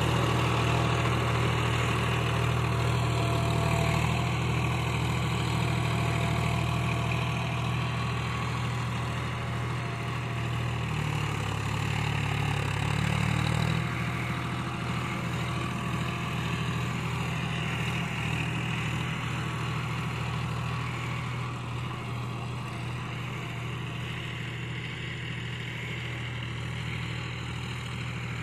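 John Deere 5050D four-wheel-drive tractor's three-cylinder diesel engine running steadily under load while pulling a laser land leveller, its note briefly rising about halfway through and slowly fading as the tractor moves away.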